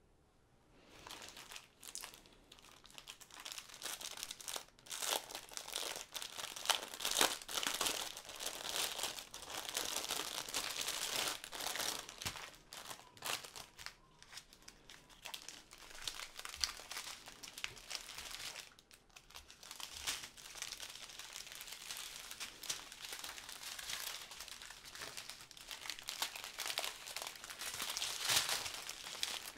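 Clear plastic wrap and small plastic bags of diamond-painting drills crinkling as a taped bundle is unwrapped by hand and the bags are handled. It starts about a second in, with a short lull about two-thirds of the way through.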